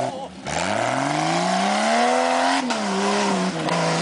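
Jeep Cherokee engine revving under load as its wheels spin in mud, with a short dip at the start. The pitch then climbs steadily for about two seconds, falls back just past the middle, and runs on at a lower, steadier speed.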